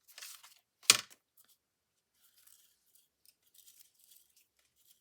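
Scissors cutting, with a short snipping rustle and one sharp click about a second in, then faint rustling and small ticks.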